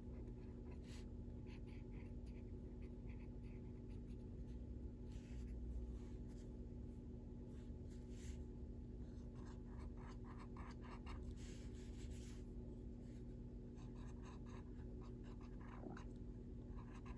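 Faint scratching of a Faber-Castell Black Edition soft-core colored pencil shading on coloring-book paper, in irregular short strokes that come in quick clusters now and then. A steady low hum runs underneath.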